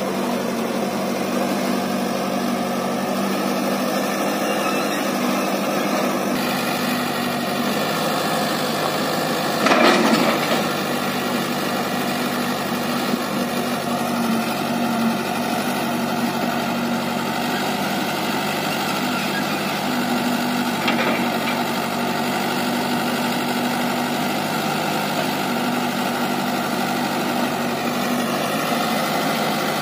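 Diesel engine of a Tata 315E backhoe loader running steadily beside a Mahindra 575 DI tractor. A brief louder clatter comes about ten seconds in.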